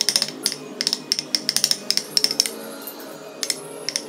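Hand chisel cutting into wood, quick runs of short crisp snicks that pause for about a second near three seconds in. Soft background music underneath.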